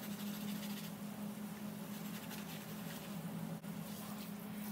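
Tap water running into a stainless steel sink while rubber-gloved hands squeeze and scrub a soapy sponge, over a steady low hum.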